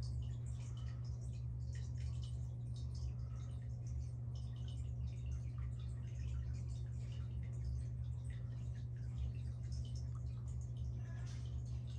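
Steady low hum of running aquarium equipment, with many small irregular ticks and drips of moving water over it.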